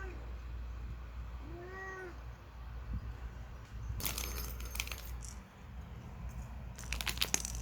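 A domestic ginger cat meows: the end of one call right at the start, then one short rising-and-falling meow about one and a half seconds in. Later come two short bursts of rattling clicks, one about four seconds in and one near the end.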